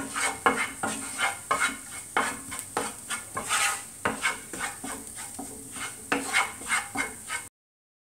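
A spatula stirring and scraping in a frying pan with quick repeated strokes while onions and spice masala sizzle in oil. The sound cuts off abruptly near the end.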